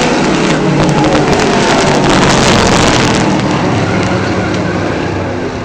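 Pack of stock-class race trucks running hard on the oval, their engines swelling as they pass close about two seconds in, then easing off.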